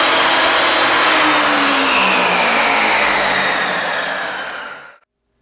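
Benchtop table saw running free with no wood in the blade, then winding down, its whine falling steadily in pitch from about two seconds in. The sound fades and cuts off abruptly about five seconds in.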